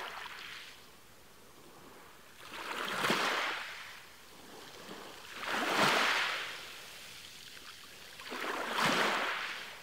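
Logo-intro sound effect: three swelling rushes of noise like surf washing in, each rising and fading over a second or two, about three seconds apart.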